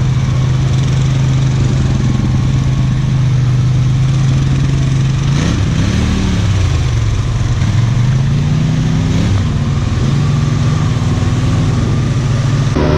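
ATV engine running steadily, revved up twice, about five and a half seconds in and again around eight seconds, its pitch rising then falling each time before settling back.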